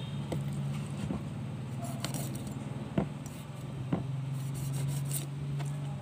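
A kitchen knife scraping and tapping on a tilapia on a wooden chopping board, with sharp clicks of the blade about once a second. A steady low hum runs underneath.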